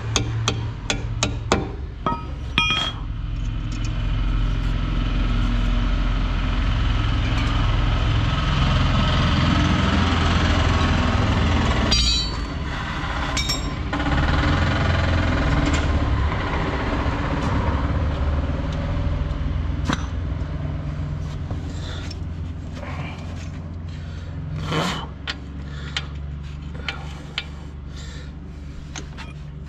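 A steady, low engine hum runs through most of the stretch and eases off about three-quarters of the way in. Sharp metallic knocks and clicks come at the start and again near the middle and end.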